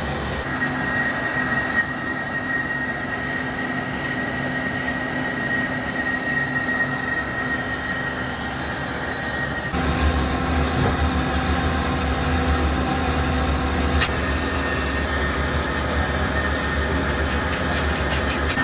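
Workshop machinery running steadily, a continuous hum with a high whine, as in cylinder-sleeve production. About ten seconds in the sound changes and the low hum grows louder. There is a single sharp tick a few seconds later.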